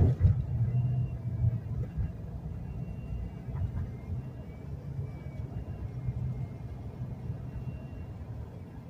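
Low rumble of a moving car heard from inside the cabin, with a sharp thump at the very start.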